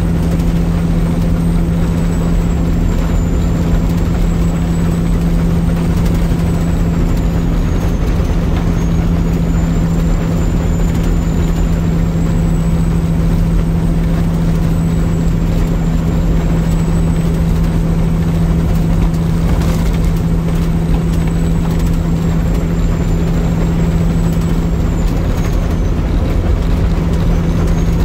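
Peterbilt semi truck cruising at steady highway speed, heard from inside the cab: a constant low engine drone over road rumble.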